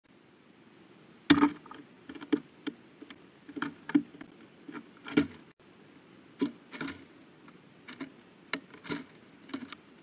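Irregular knocks and taps of a bird landing, hopping and pecking on a wooden platform feeder covered in seed. The loudest knock comes about a second in.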